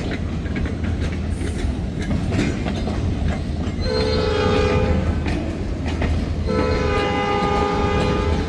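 Diesel locomotive, an EMD SD40-2, running past with a steady low engine rumble and wheel clicks on the rails, sounding its multi-note air horn twice: a blast of about a second, then a longer one of about two seconds near the end.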